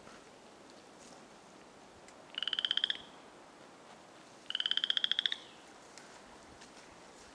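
Boreal chorus frog calling twice: two short, rapidly pulsed, rising creaking trills a couple of seconds apart.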